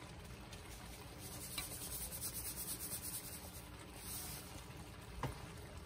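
Salt being sprinkled over a pot of pelau: a faint, even hiss, with two light clicks, one about a second and a half in and one near the end.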